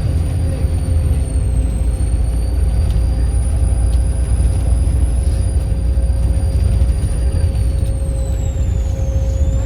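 Volvo B7RLE bus's turbocharged diesel engine running with a loud, high turbo whistle over a deep engine rumble. The whistle holds fairly steady, then falls in pitch about nine seconds in and starts to rise again.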